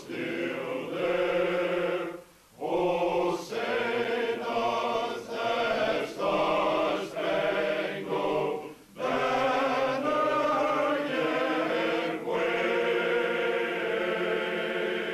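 Men's choir singing Orthodox chant without accompaniment, in sustained chords, with two short breaks between phrases; the singing cuts off abruptly at the end.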